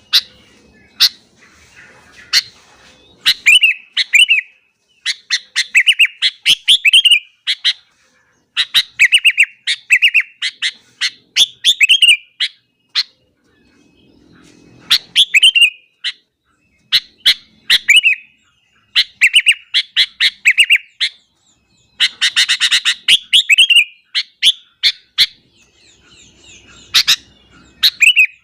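Sooty-headed bulbul (kutilang) in full, energetic song: loud phrases of quick bubbling notes, repeated one after another every second or two with short pauses between.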